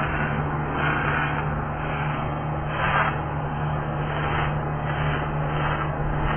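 MIG welding arc crackling and hissing on steel, swelling and easing unevenly, over a steady low hum. The CO2 shielding gas is running low.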